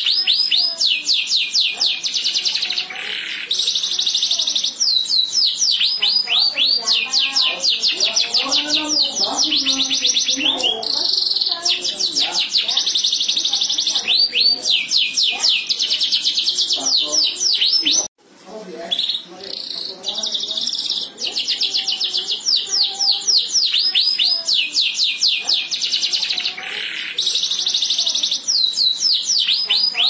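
Domestic canary singing a long, loud song of fast trills: series of rapid repeated notes alternating with buzzy rolls, breaking off briefly about halfway through.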